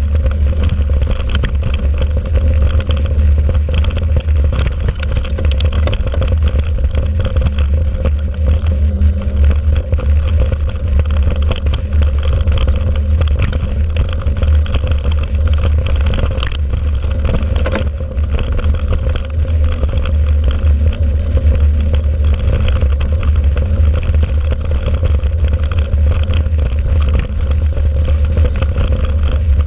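Wind rumbling on the microphone of a handlebar-mounted action camera on a mountain bike riding over a dirt and sandy track, with steady tyre noise and frequent small rattles and clatters from the bike and mount.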